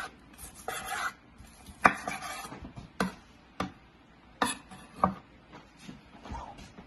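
A kitchen knife slicing through a cooked steak on a bamboo cutting board, the blade knocking against the board about five times at uneven intervals, with soft scraping between the knocks.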